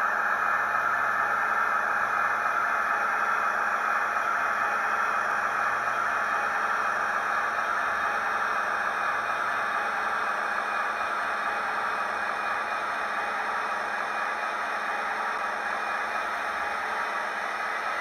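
Model train running on the track: a Class 56 locomotive hauling loaded ballast wagons, with a steady whirring of the motor and rattle of wheels on rail, slowly getting quieter. A low hum under it drops out near the end.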